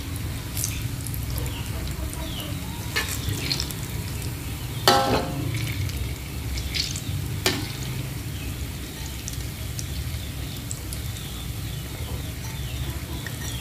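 Balls of banana bread dough deep-frying in hot oil in a wok, a steady sizzle, with a few clinks of a metal spatula against the wok as they are turned, the loudest about five seconds in.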